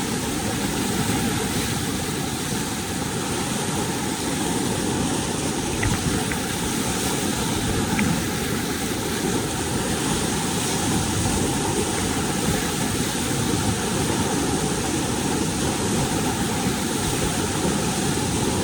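Steady rushing of fast river current pouring through a dam gate and over a standing surf wave, an even noise with no let-up.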